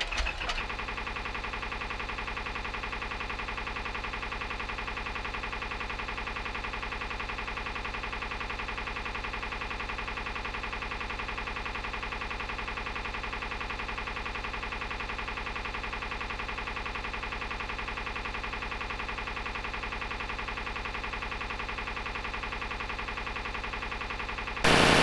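A steady, unchanging buzzing drone made of many evenly spaced overtones, which jumps abruptly louder near the end.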